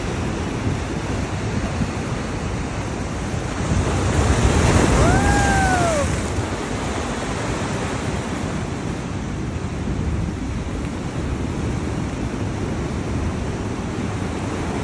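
Heavy ocean surf breaking and washing over rock boulders, with wind buffeting the microphone. One wave swells loudest about four to six seconds in, and a single brief call that rises and falls in pitch sounds over it.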